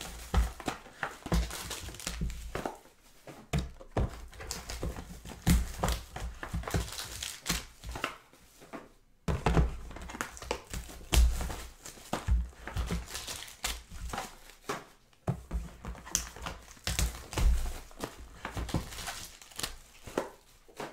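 Silver foil trading-card pack wrappers crinkling and tearing as they are handled and opened, with irregular clicks and occasional low thumps as boxes and packs are set down on the table.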